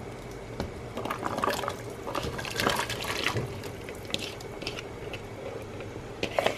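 Cooking water being poured off boiled potatoes, splashing unevenly for a few seconds, with a couple of sharp knocks near the end.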